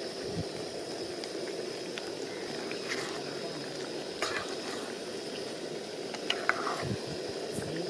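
Chicken liver curry sizzling and bubbling steadily in a cooking pot, with a few light clicks scattered through.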